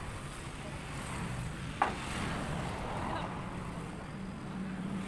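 A single sharp hammer blow on a nail into the plywood sign board, about two seconds in, with a brief ring. Road traffic runs steadily underneath, with a low engine hum near the end.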